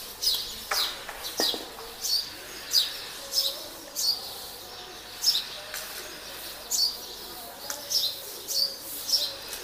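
A small bird chirping over and over: short high chirps that fall in pitch, about two a second.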